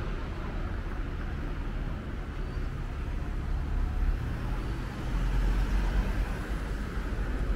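Road traffic: a steady low rumble of vehicles passing on a city street, growing louder about five seconds in as a vehicle goes by closer, then easing.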